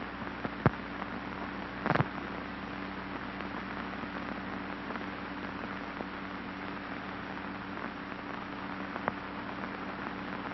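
Steady hiss with a low hum and a few scattered clicks and pops: the background noise of an old film soundtrack, with no speech or music over it.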